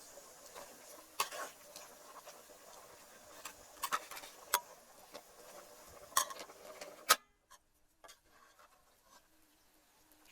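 Cooking utensils clinking and knocking against pots and dishes, a few sharp strikes scattered over several seconds; the sound drops away abruptly about seven seconds in.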